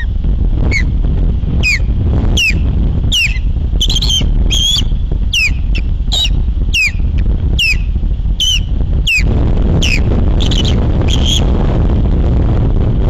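Osprey calling: a series of short, high, downward-sliding chirps, one or two a second, that stops near the end. Strong wind buffets the microphone with a constant rumble underneath.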